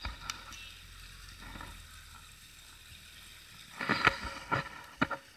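Water lapping against a small boat's hull, with a cluster of knocks and splashes about four seconds in and one sharp knock a second later.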